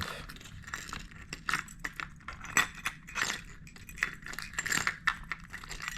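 Hard fishing lures with treble hooks being handled and rummaged through in a plastic tackle box: irregular clicks and clinks of metal hooks and hard plastic bodies knocking together.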